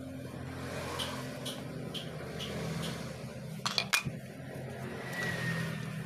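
Metal motorcycle water pump parts handled on a tiled floor: light ticks about twice a second, then two sharp metallic clinks close together just before four seconds in, over a low steady hum.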